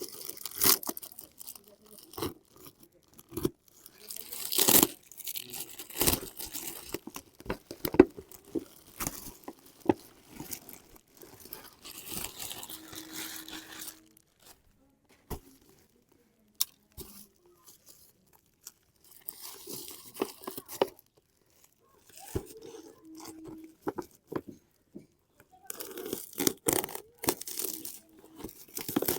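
Toy packaging being handled and torn open: ripping and crinkling with sharp clicks and knocks, coming in bursts separated by quiet pauses.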